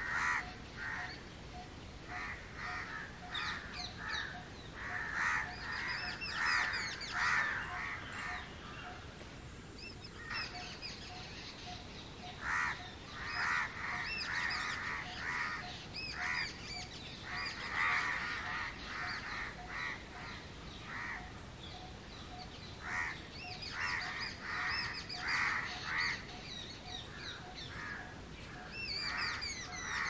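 House crow cawing over and over in quick runs of short caws, with pauses of a few seconds between the runs.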